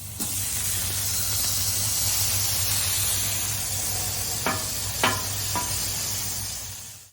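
Halloumi cheese sizzling on a hot flat-top griddle: a steady frying hiss, with three short clinks about two-thirds of the way through. The sizzle fades out at the end.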